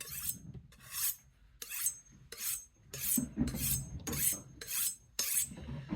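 Kitchen knife blade drawn along a honing rod in quick alternating strokes, about ten short scraping swipes at roughly two a second, some with a faint metallic ring. It is refining the toothy edge left by a coarse 80-grit belt.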